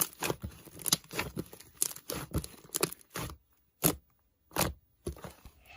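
A run of short, irregular clicks and taps, about three a second, with a pause of a second or so a little past the middle.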